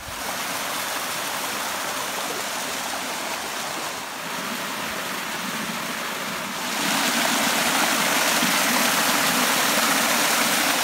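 Small spring-fed waterfall cascading over rock ledges into a pool: a steady rush of water that grows louder about two-thirds of the way through.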